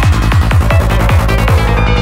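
Electronic trance music: a steady kick drum about twice a second over a sustained bass line, with synth lines above.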